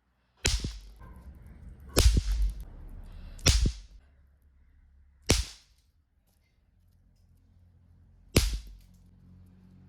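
Snap pops (bang snaps) thrown on the ground and going off one after another: five sharp cracks at uneven intervals, with a longer pause of about three seconds before the last.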